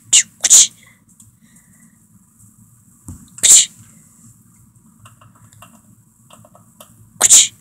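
Dog sneezing and snorting in short, sharp bursts: two close together at the start, one about three and a half seconds in, another near the end. Play-sneezes while she noses after the laser dot.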